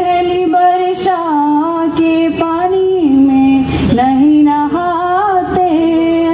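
A girl singing a Hindi children's song solo into a microphone, holding long notes that step up and down in pitch, with brief breaks between lines.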